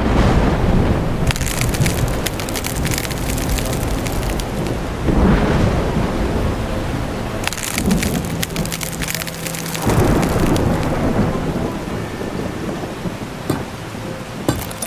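Heavy rain hissing steadily, with several low rumbles of thunder: one at the start, then more about 5, 8 and 10 seconds in.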